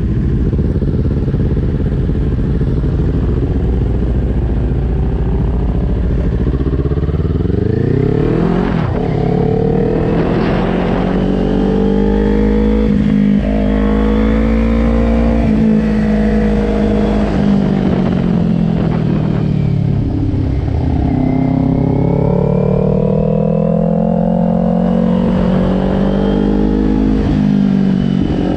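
2020 Kawasaki Ninja 400's parallel-twin engine heard from onboard, idling at first, then revving up through the gears about six seconds in. Its pitch keeps rising and falling as the bike speeds up and slows for the corners.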